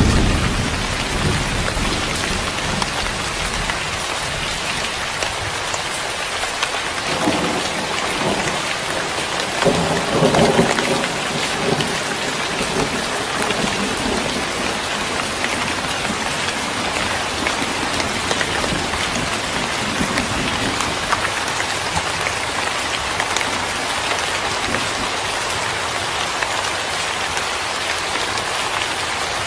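Steady heavy rain as a background ambience, an even hiss of falling rain, with a roll of thunder about seven to eleven seconds in.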